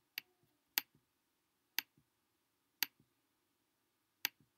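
Five quiet, sharp clicks, unevenly spaced about a second apart.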